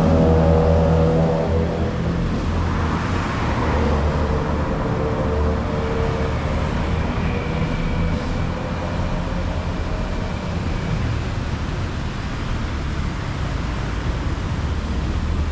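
Steady road traffic: a continuous low rumble of passing vehicles.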